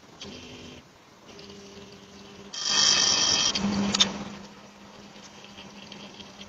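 Small electric motor whirring with scuffing noises as a floor-level robot pet camera drives out from under a sofa. A louder rushing scuff comes about two and a half seconds in and ends in a sharp click, followed by a steady low hum.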